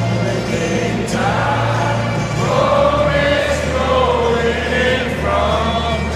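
Many voices singing a song together in a football stadium, with long held, sliding notes over a steady low hum.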